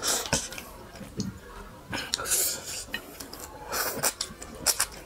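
Close-up mouth sounds of a person sucking and slurping the juice and flesh out of an orange half, in a series of short wet bursts.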